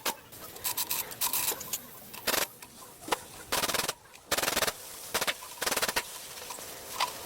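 Several short bursts of rapid mechanical rattling, each about half a second long, with sharp clicks and knocks in between.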